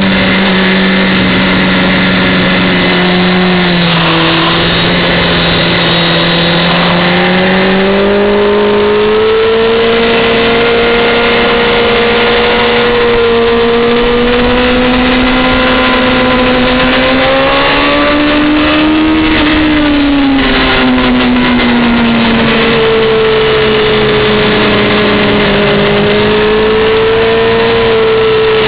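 Honda CBR600F4i's inline-four engine at high revs on track, heard from on board the bike. Its pitch drifts up and down with the throttle, climbing and then dropping about two-thirds of the way through.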